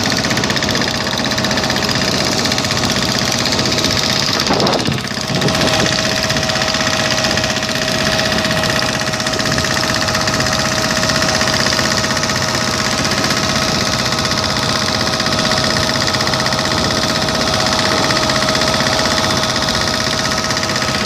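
Engine running steadily with a constant drone and a steady whine, briefly dipping about five seconds in.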